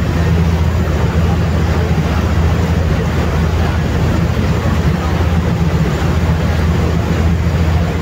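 Steady low drone of a passenger ferry's engine heard on board, over the rushing, churning water of its wake.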